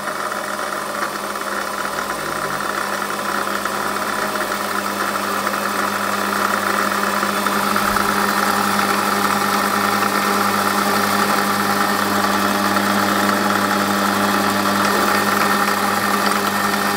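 Metal lathe running steadily with an even mechanical hum from its motor and drive, as a center drill in the tailstock chuck is brought up to the end of a spinning phosphor bronze bar.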